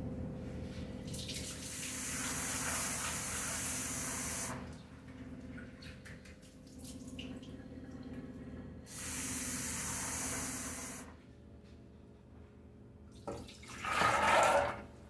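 Kitchen tap running in two runs of a few seconds while soaked dried peas are rinsed by hand in a steel bowl, with quieter swishing of water between them. Near the end, the wet peas are tipped from the bowl into a pressure cooker in one short, loud pour.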